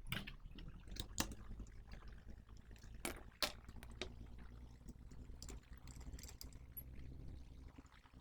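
Scattered clicks and knocks of an HP computer power supply being handled and put back together, the loudest about a second in and about three and a half seconds in, over a steady low hum.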